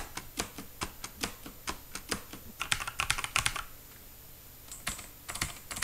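Mechanical keyboard's space bar pressed over and over: sharp clacks about two or three a second, a quicker flurry near the middle, a short pause, then a few more presses.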